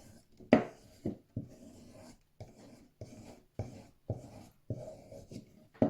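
Multitool knife blade being stropped on a leather strop loaded with compound: a sharp click, then repeated short scraping strokes about two a second. The blade is being honed because it came dull out of the box.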